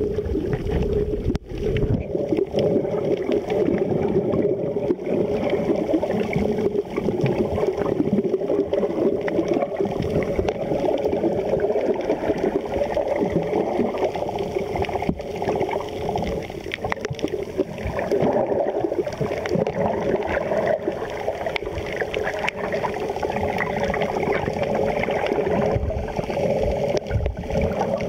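Muffled underwater sound picked up by a camera held under the sea while snorkeling: a steady churning wash of moving water with gurgling and small clicks.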